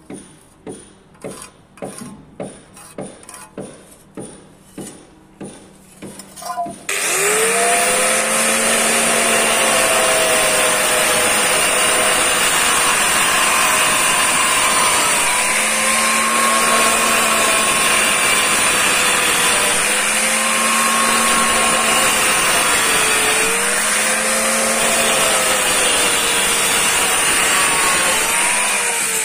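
About a dozen short scratching strokes, roughly two a second, as a pencil marks a circle on the ridged face of a glazed wall tile. About seven seconds in, a handheld electric tile cutter starts suddenly and runs loudly with a high whine. Its tone sags and recovers several times as the blade bites into the tile along the circle.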